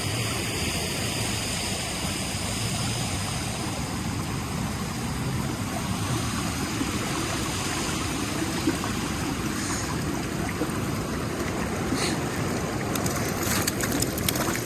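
River water rushing steadily, an even wash of flowing water, with a few faint clicks near the end.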